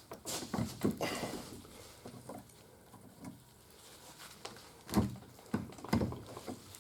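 Metal tools clinking and knocking against a steel hydraulic cylinder as its nut is worked loose: a cluster of sharp knocks about half a second to a second in, then a few more near the end, with quieter handling between.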